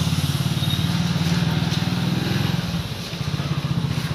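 Motorcycle engine running at low riding speed, a steady low pulsing exhaust note that quietens and dips briefly about three seconds in, then picks up again.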